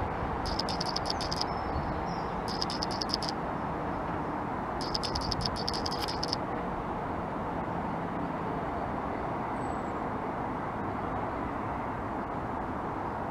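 Steady rumble of a departing Class 153 and Class 170 diesel multiple unit pulling away from the platform, with three short spells of fast, high-pitched rattling in the first six seconds or so.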